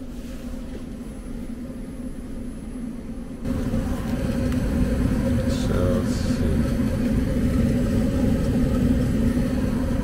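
Goodman 90% gas furnace running, a steady motor hum over a low rumble. It gets louder about three and a half seconds in, then holds steady.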